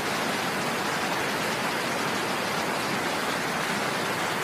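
Steady, even rush of water pouring from a dam's open floodgates in spray jets.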